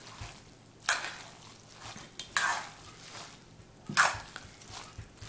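Grated raw pumpkin batter being mixed by hand in an enamel bowl: wet, squishing swishes about every second and a half, three strokes in all.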